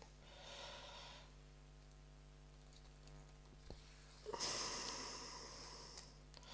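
Embroidery thread drawn through cross-stitch fabric, two swishes: a short soft one, then a longer, louder one about four seconds in that fades out.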